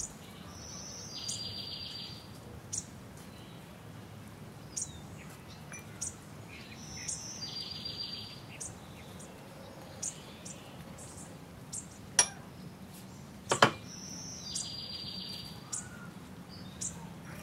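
Birdsong ambience: birds chirping and calling, with one call of quick repeated notes coming back about every six seconds. Two sharp knocks about three quarters of the way through are the loudest sounds.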